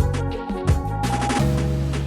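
Background music with a drum beat and pitched instruments; the drums stop a little past halfway, leaving held notes.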